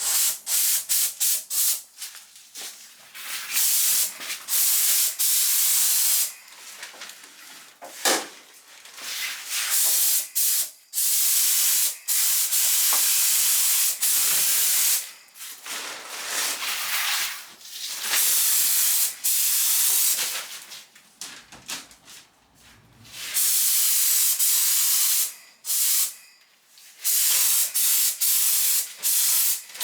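Air-fed paint spray gun hissing in repeated passes as two-pack paint is sprayed onto a car panel. The gun's trigger is pulled on and off, giving bursts from a fraction of a second to about two seconds long, with short pauses between.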